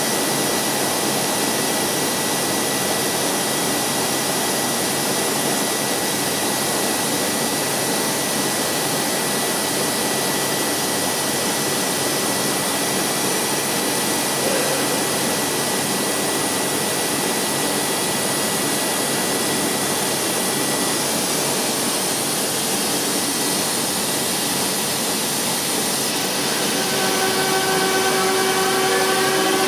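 Okuma GI-20 CNC grinder running: a steady rushing hiss with a thin high whine that stops about two-thirds of the way through. A few seconds before the end, a motor winds up with a rising whine and the sound grows slightly louder.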